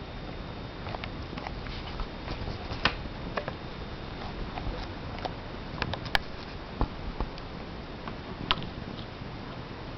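Steady static hiss from a low-quality camera's audio, with scattered short clicks and crackles.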